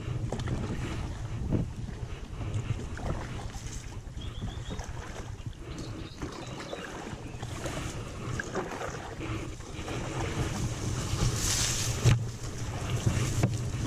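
Kayak running through floodwater rapids: rushing water and wind buffeting the microphone, with scattered knocks against the boat and a sharper knock about twelve seconds in.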